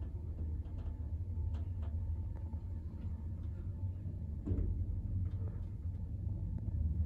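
Fuji Elevator lift car travelling downward, a steady low rumble and hum inside the car, with a few faint clicks.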